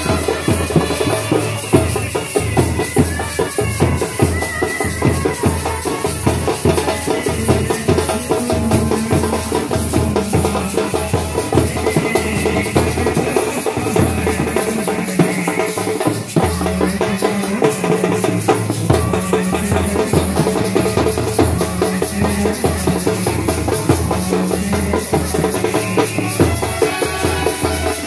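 Indian street brass band playing: trumpets and brass horns carry a melody over fast, steady beating on side-slung bass drums and clashing hand cymbals.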